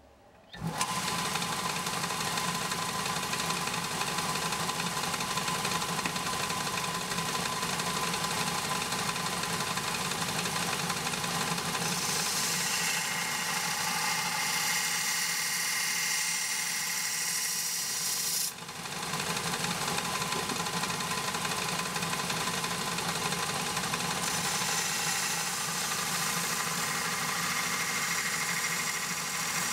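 Bench belt grinder switched on about half a second in and running steadily, with the hiss of a high-carbon steel knife blade being ground against the belt to put in the primary bevel. The grinding hiss is strongest in two long stretches, and the level dips briefly about 18 seconds in.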